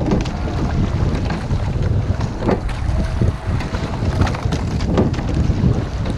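Wind buffeting the microphone over the rush of water around a rowing shell under way, with sharp knocks recurring every couple of seconds.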